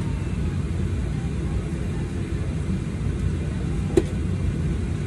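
Steady low rumble inside the cabin of a Boeing 737-800 airliner standing at the gate, with a single short sharp knock about four seconds in.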